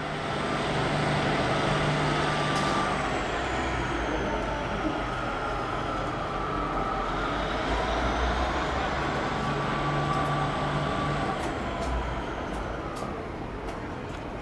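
Train engine running at a station platform with a steady hum. A faint high whine falls in pitch and then rises again over several seconds, and the sound fades slowly near the end.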